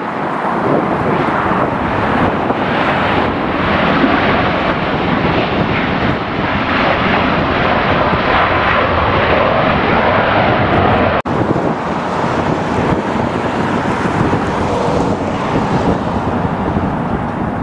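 Jet airliner passing close by, its engines making a loud, steady rushing noise that is strongest in the first two-thirds and eases slightly after a brief dropout about eleven seconds in.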